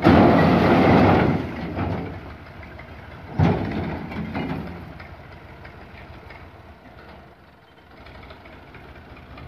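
A load of fired bricks sliding off a tipping tractor trolley and crashing onto a pile, loudest in the first second and a half, with another sharp crash about three and a half seconds in. The clatter then dies away to the tractor's engine idling.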